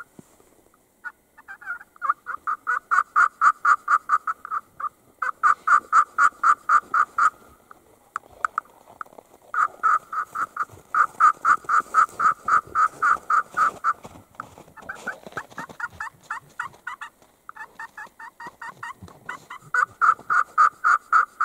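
A Primos turkey call worked by hand, sounding turkey calls in fast runs of short, high notes about five a second. The runs last a few seconds each, with short pauses between. The call is new, and its user is practising to get used to it.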